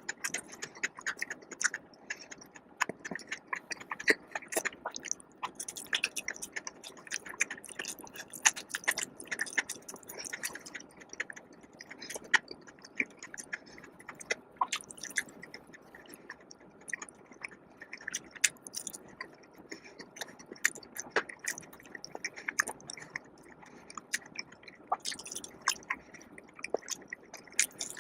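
Close-miked chewing and biting of food, with many irregular crisp clicks and wet crackles of the mouth.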